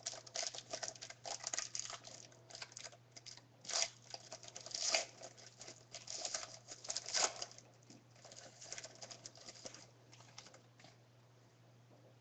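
Panini basketball trading cards being handled: a run of quick rustles, slides and flicks of card stock, with a few louder snaps, dying away about eleven seconds in.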